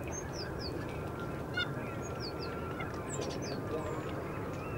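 A large flock of ducks calling together on open water: a steady mass of overlapping calls with many short, high, falling whistled notes over it.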